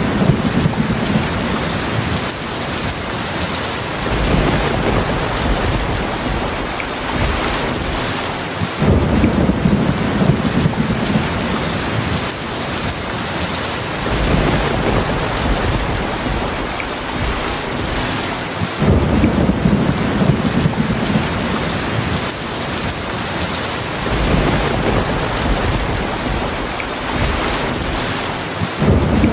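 Heavy rain falling steadily in a thunderstorm, with low rolls of thunder that set in about every ten seconds and die away.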